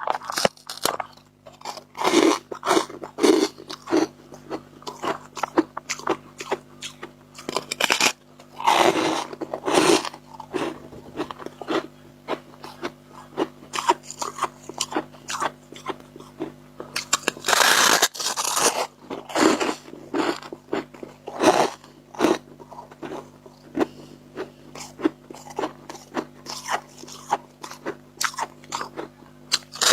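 Someone biting and chewing dry freezer frost chunks: irregular crunches throughout, with longer, denser bouts of crunching about nine and eighteen seconds in.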